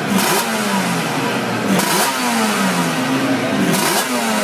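Yamaha two-stroke racing motorcycle engine being blipped on the throttle about every two seconds, each sharp rise in revs falling back toward idle.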